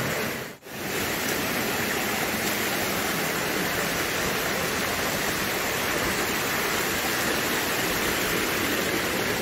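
Rushing water of a shallow rocky stream and its small waterfalls, a steady even hiss, broken by a brief drop-out about half a second in.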